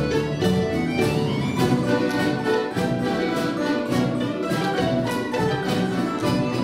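Russian folk-instrument orchestra of plucked domras and balalaikas, with bayan, playing a folk-song arrangement in a brisk, even plucked rhythm.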